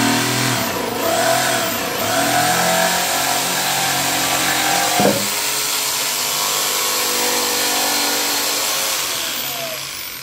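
Makita corded jigsaw running and cutting through plywood: a steady motor whine over the noise of the reciprocating blade chewing through the sheet, with a brief louder burst about halfway. Near the end the motor winds down and the sound fades.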